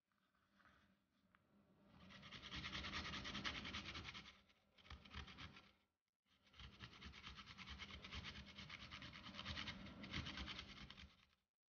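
Fresh ginger rubbed back and forth on a handheld metal-bladed grater: a steady, rapid scraping of quick strokes that stops for a moment about halfway and then carries on.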